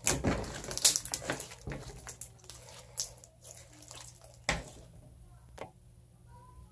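Bead-studded glitter slime being squeezed and stretched by hand, giving wet crackling pops and squelches. The popping is dense for the first second and a half, then comes as a few separate pops.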